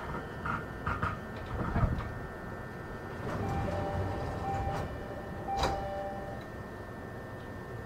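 Two-tone door chime of a JR 209 series commuter train car sounding as the sliding doors work at a station stop, with a low thud early on and a sharp knock about five and a half seconds in.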